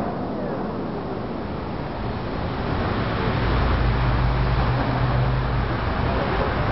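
Steady rushing of the Bellagio fountain's water spray falling back onto the lake, with a low hum joining for a couple of seconds midway.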